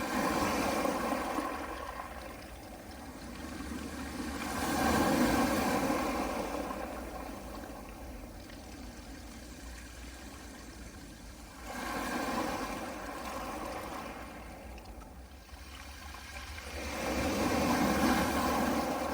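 Gentle sea waves washing in over a pebble beach, the surf swelling and fading four times, roughly every five to six seconds, over a steady low rumble.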